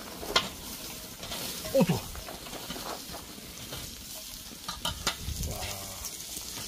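Pieces of seafood sizzling in a frying pan held over an open charcoal fire, stirred with metal tongs that click against the pan now and then. About two seconds in, a loud, short falling vocal exclamation stands out.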